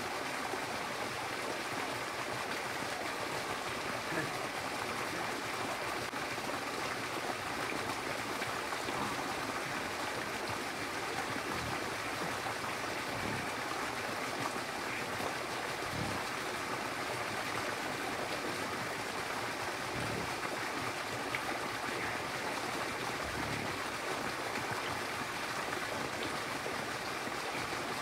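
Steady rush of irrigation water flowing from a pipe outlet into a field channel, with a few faint low knocks.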